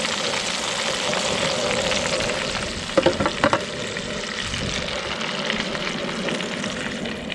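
Cornmeal-breaded catfish fillets deep-frying in a pot of hot oil: a steady sizzle, with a few sharp clicks about three seconds in.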